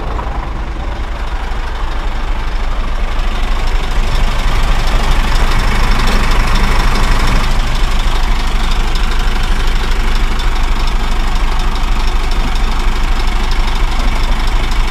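Scania truck's diesel engine idling steadily, growing louder and closer about four seconds in.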